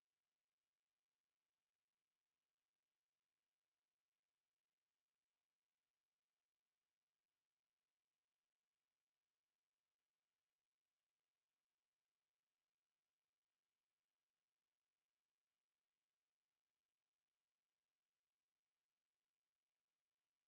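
A pure 6463 Hz sine-wave test tone, a steady high-pitched whistle held at one pitch and level without a break.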